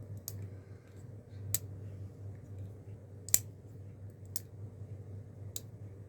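HX Outdoors ZD-104B folding knife being worked open and shut, five sharp metallic clicks about a second apart, the loudest a little past the middle. A low steady hum runs underneath.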